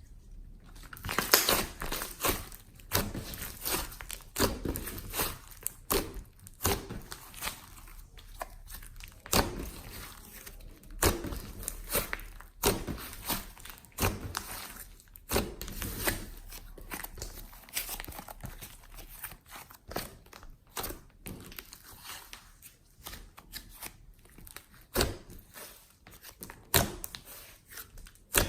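Glossy slime worked by hand with clay mixed in: stretched, pressed and folded, giving irregular sticky clicks and pops, several a second at times.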